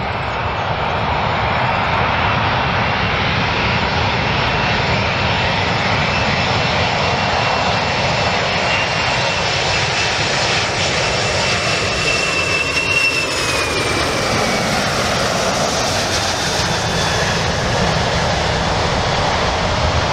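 Boeing 747-400 airliner's four turbofan engines on final approach to land, a steady loud jet rush. A whine in it falls in pitch about two-thirds of the way through as the plane passes close by.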